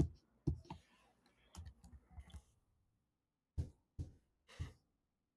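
Computer mouse clicked several times in irregular short bursts, with soft breaths between the clicks.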